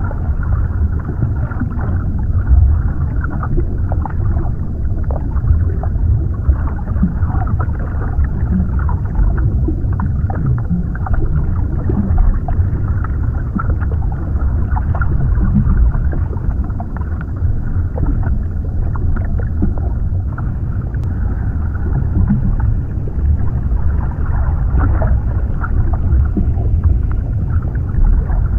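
Underwater ambience: a steady, deep, muffled rumble with faint short crackles scattered through it.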